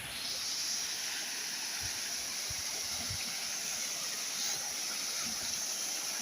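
Waterfall water rushing, a steady hiss that comes up sharply just after the start and holds, with a few faint low knocks under it.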